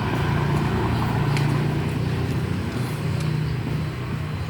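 A steady low hum with a noisy background and a few faint short ticks.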